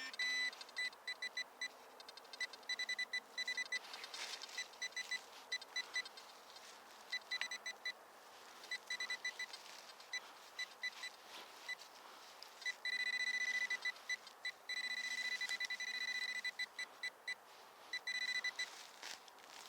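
Metal detector beeping over a buried target: runs of rapid high-pitched beeps that come and go, and two steady held tones of about a second each, two-thirds of the way through.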